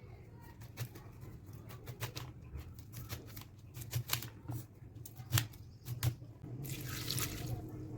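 Irregular sharp clicks and knocks of cooking utensils, several a second at times, then a short burst of hiss about seven seconds in over a low steady hum.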